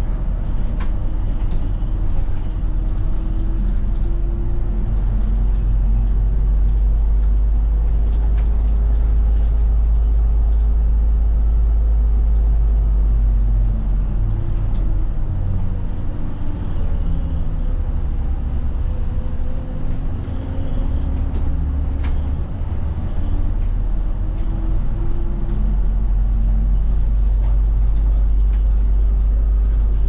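Route bus heard from inside the passenger cabin while moving: a steady heavy low rumble of engine and road noise. A drive whine slowly rises and falls in pitch as the bus speeds up and slows.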